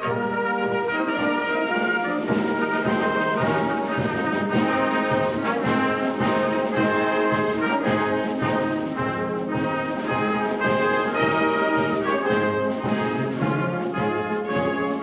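Wind band playing live, brass to the fore: trumpets and trombones carrying a full, many-voiced passage over a regular beat.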